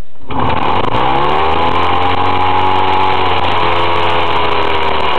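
Motostandard Super U6's 200 cc two-stroke engine starting for the first time: it catches suddenly about a third of a second in, revs up briefly, then settles into a steady run.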